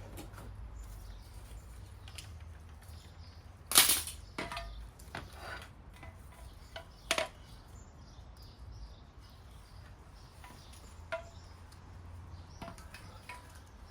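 New clutch parts being handled and checked: a sharp metal clank about four seconds in, then a few lighter clicks and knocks.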